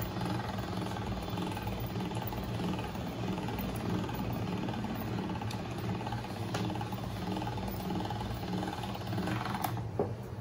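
Pasta machine running steadily with an even whirr as noodle dough is rolled through its rollers.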